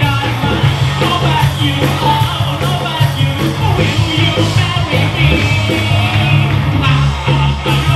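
Live rock band playing loudly, with a male vocalist singing into a microphone over a heavy bass line.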